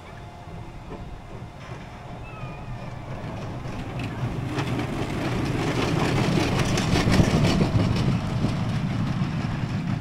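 Small family roller coaster train rolling along its steel track, wheels rumbling and rattling. It grows louder as the train comes round the near curve, is loudest about seven seconds in, and eases as it moves away.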